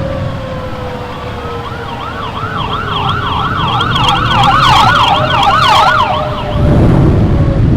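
Ambulance siren in a fast yelp, about four rises and falls a second, swelling in and fading out over a few seconds above a slow, low wavering tornado siren. Near the end a loud rush of heavy rain and rumble comes back in.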